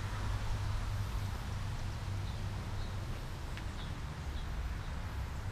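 Outdoor ambience: a steady low rumble with a few short, faint bird chirps scattered through it.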